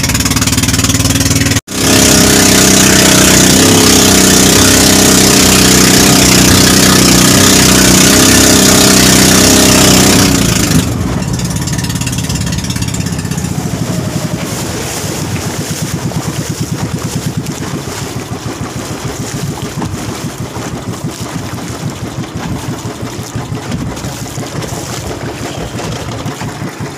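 Engine of a motorized outrigger fishing boat running under way, loud and steady with a strong hum, then about ten seconds in dropping noticeably in level to a rapid, even putter.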